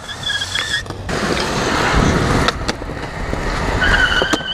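Skateboard wheels rolling on concrete with a rumble, broken by a few sharp clacks of the board popping and landing. A steady high tone sounds briefly at the start and again near the end.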